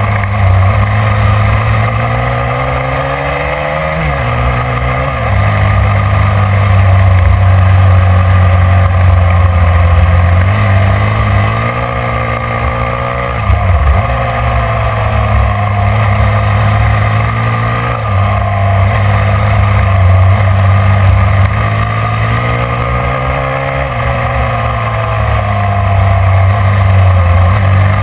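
Snowmobile engine running at speed, its pitch rising and falling with the throttle, with a brief sharp drop and pickup about halfway through.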